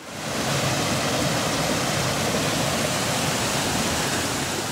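Steady rush of running water from a desert spring, pouring close by.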